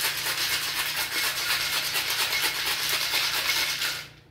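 Ice cubes rattling inside a stainless-steel cocktail shaker shaken hard, a rapid steady churning that stops shortly before the end, chilling the drink.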